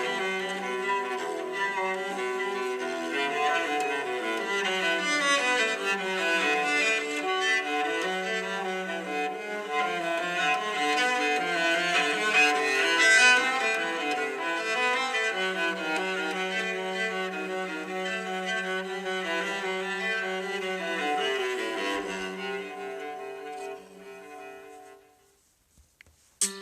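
A stock LG G6 phone ringtone: a melodic piece played on bowed strings, cello and violins together, that fades out about 24 seconds in. A brighter, chiming tone starts just at the end.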